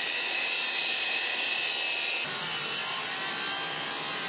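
Circular saw ripping a long wooden board lengthwise: the motor's steady whine under the noise of the blade cutting wood, changing slightly about halfway through as the saw moves along the cut.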